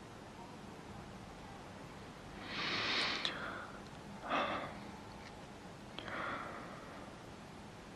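A person breathing audibly in bed: three soft breaths or sighs, about two and a half, four and a quarter, and six seconds in, over a faint steady hiss.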